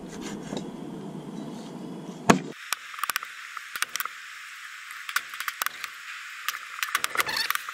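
Scattered light knocks, clicks and scrapes of cooking work, with one sharper knock a little over two seconds in, after which the sound turns thin and hissy.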